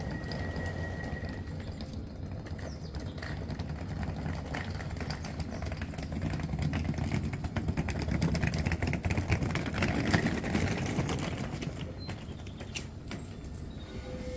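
A train moving at the station: a low rumble laced with rapid clicking that swells to its loudest about eight to eleven seconds in, then eases off.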